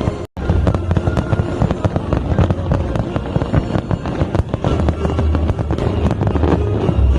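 Fireworks display going off in a dense run of bangs and crackling bursts, with music playing underneath. The sound cuts out for a moment just after the start.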